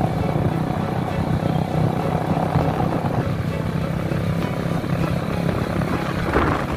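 A vehicle's engine running steadily while on the move, with a brief louder noise near the end.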